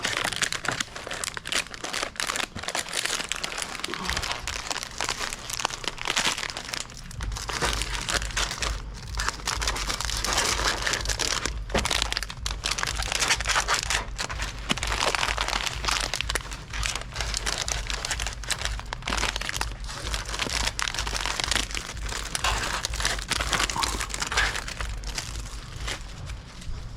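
Plastic snack bags crinkling and rustling continuously as they are handled and loaded into a vending machine. A low steady hum comes in partway through and gets stronger about seven seconds in.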